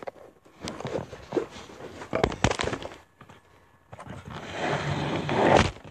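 Handling noise from a phone being picked up and repositioned while it records: a scatter of knocks and clicks, then a longer, louder rubbing rustle near the end.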